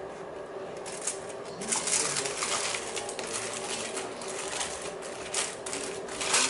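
Aluminium foil and banana leaves crinkling and rustling as hands fold and handle them, a dense crackle starting about a second and a half in and loudest near the end. A faint steady hum runs underneath.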